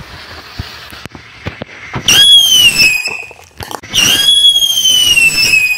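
Firework burning inside a plastic bottle: the fuse hisses for about two seconds, then two loud shrieking whistles, the first about a second long and the second longer, each sagging slightly in pitch.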